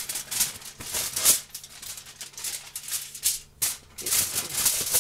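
Aluminum foil being pulled off the roll and smoothed flat by hand, in irregular crinkling crackles.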